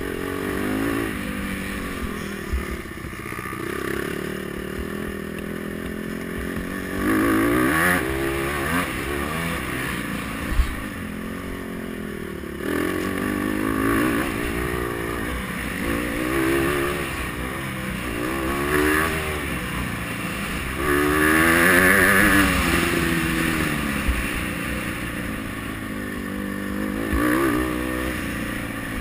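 Honda CRF150R's single-cylinder four-stroke engine revving up and falling back over and over as the dirt bike accelerates and eases off round a motocross track, heard close up from a camera on the bike. The revs climb hardest twice, about a quarter of the way in and again about three quarters of the way in, and a single sharp knock sounds about ten seconds in.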